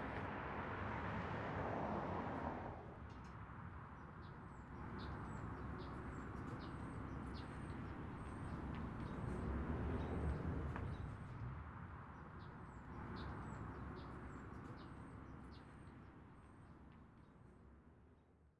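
Outdoor ambience: small birds chirping in short high calls over a steady rushing noise with a low rumble that swells about ten seconds in, the whole fading out near the end.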